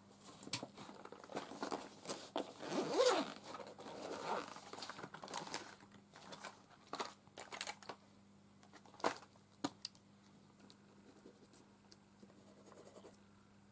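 A zip on a fabric pencil case being pulled, with rustling as things are rummaged through it. The rustling is loudest about three seconds in, and a few sharp clicks follow as items are picked out.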